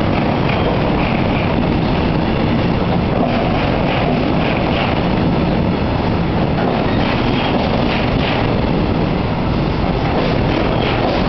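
A train passing close by on the railway bridge: a loud, steady rumble of wheels on the rails.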